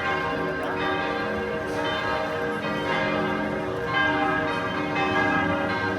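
Church bells ringing: several bells sounding together in an overlapping peal, a new stroke coming roughly every second while the earlier tones ring on.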